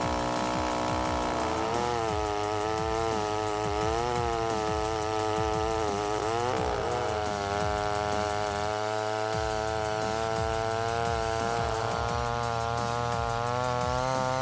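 Chainsaw engine running at high revs, its pitch dipping and recovering several times.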